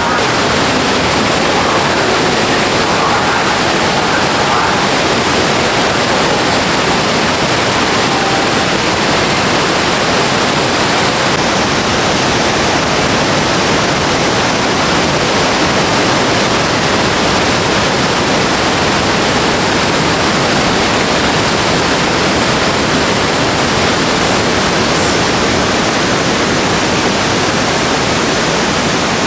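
Loud, steady rush of a waterfall on the Katashina River, water pouring over rock without a break.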